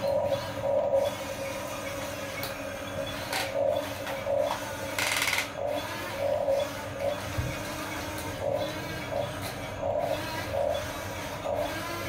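Small electric motors of a Huina 1550 RC excavator whining in short spurts, about once a second, as the boom, bucket and slew are worked. About five seconds in there is a brief scraping hiss.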